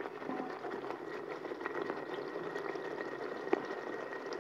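Onion-tomato masala with ground spices bubbling and sizzling steadily in hot oil in a pot as a wooden spoon stirs it, with one short knock about three and a half seconds in. The oil is separating from the masala, the sign that it is cooked through.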